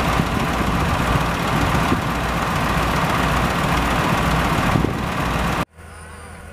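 Heavy diesel engine running steadily close by, a dense low rumble with a rattly haze over it. It cuts off abruptly near the end, leaving a much quieter background with faint high steady tones.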